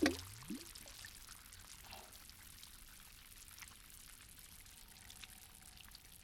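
Water pouring or splashing cuts off right at the start with a short rising gurgle, then faint scattered drips and trickles.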